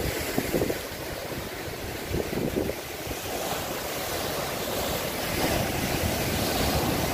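Sea surf breaking and washing over shoreline rocks, a continuous rushing that swells about halfway through. Gusts of wind buffet the microphone in the first few seconds.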